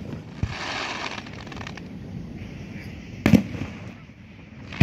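Aerial firework shells bursting overhead: a crackling hiss in the first second, then a sharp bang a little over three seconds in.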